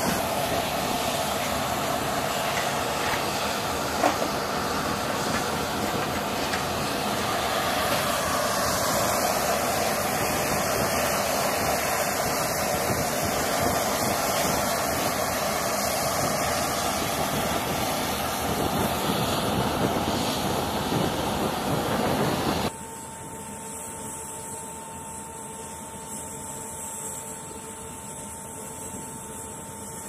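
Loud, steady rushing noise of aircraft turbine running on a flight line, with a single knock about four seconds in. About 23 seconds in it drops abruptly to a quieter steady hum with a thin whine.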